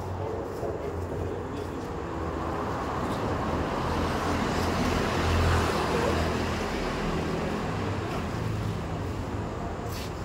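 Road traffic: a steady hum of vehicle engines and tyres, swelling louder about halfway through as a vehicle passes close.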